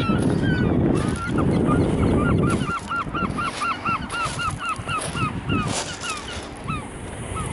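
A gull giving a long run of repeated yelping calls, about three or four a second, tailing off near the end. A low rushing noise runs under the first few seconds and then drops away.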